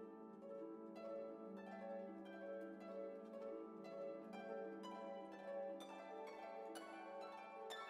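Background music: a continuous run of plucked string notes.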